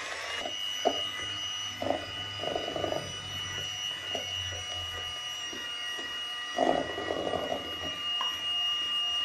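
Electric hand mixer running at a steady whine, its twin beaters whipping egg and powdered sugar in a plastic bowl. Several times the beaters knock and rattle against the side of the bowl.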